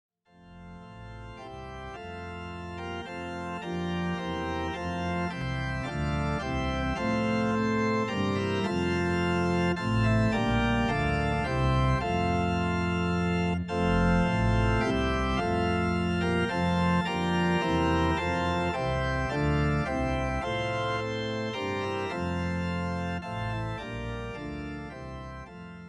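Organ music: slow, held chords that change every second or so, fading in at the start and fading out just before the end.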